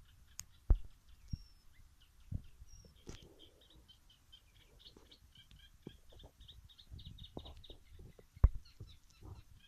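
Small birds chirping in quick short notes, with a few sharp low thumps standing out above them.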